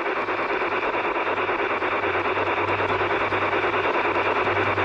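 LGB Coca-Cola G-scale steam train running on brass track, heard close up from a camera riding on the train: a steady rushing of wheels and motor with a low hum and a fast, even pulse.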